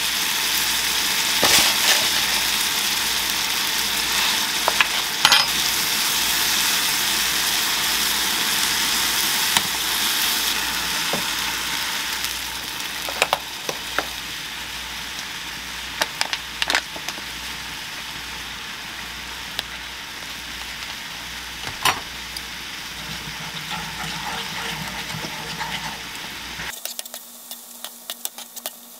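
Diced bacon and mushrooms sizzling in a nonstick frying pan, with occasional clicks of a utensil against the pan. Partway through the sizzle turns quieter as liquid goes in and the mixture simmers, and near the end a spoon stirs it.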